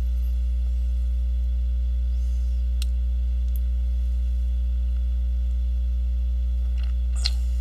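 Steady electrical mains hum, a low buzz with a stack of overtones, with two faint clicks about three seconds in.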